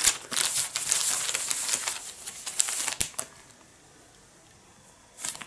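Paper instruction leaflet unfolded and flattened by hand: crisp rustling and crinkling for about three seconds, ending in a sharp click, then a brief rustle near the end.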